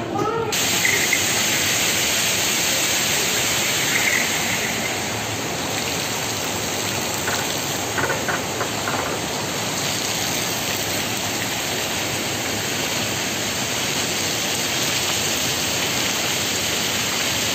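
The water of a large plaza fountain, Suntec City's Fountain of Wealth, splashing and rushing in a steady dense hiss that cuts in abruptly about half a second in.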